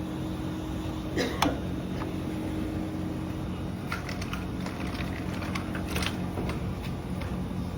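A steady machine hum with a few knocks and clicks on top, the loudest about a second and a half in.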